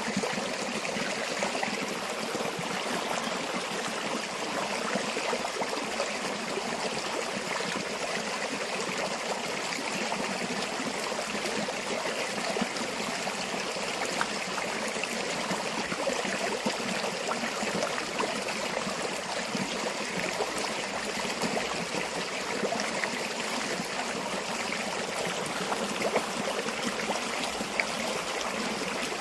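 A stream or small river flowing over stones, a steady rushing and babbling with small splashes.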